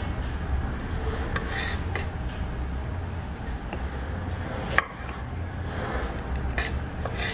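A kitchen knife slicing and scraping serrano chiles on a wooden cutting board to remove the seeds, with a few sharp knife taps on the board, the loudest about five seconds in. A steady low rumble runs underneath.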